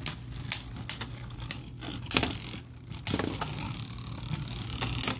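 Two Beyblade spinning tops, Lightning L-Drago and Aries, spinning in a plastic stadium and clacking together, with a string of sharp clicks and knocks at irregular intervals.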